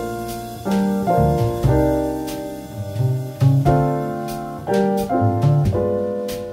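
Background music: piano chords struck every half second to a second, each fading away, over a low bass line.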